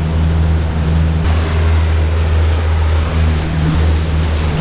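Boat engine running at a steady speed with a low, even drone, while water rushes along the hull as the boat runs across open water.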